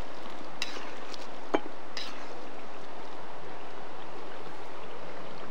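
River running steadily, with three light clicks in the first two seconds.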